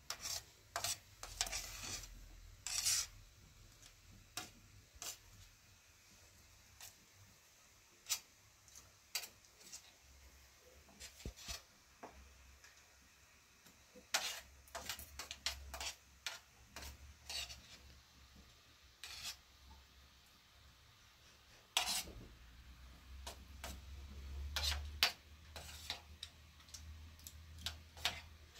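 Metal spoons scraping and clicking against a large metal tray as kashk ash is scooped up and eaten, in irregular, scattered strokes with pauses between.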